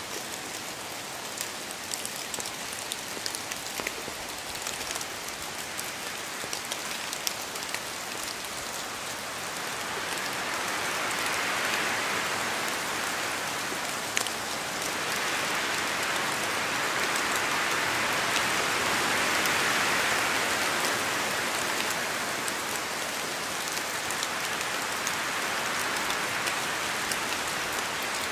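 Steady rain falling and pattering on surfaces, with scattered sharper drop ticks; the downpour swells heavier about ten seconds in and stays heavier.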